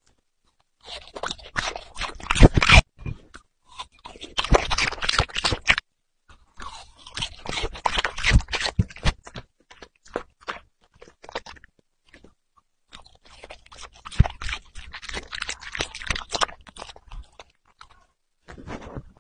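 Puppy chewing and crunching watermelon, in several bursts of crunching with short pauses between.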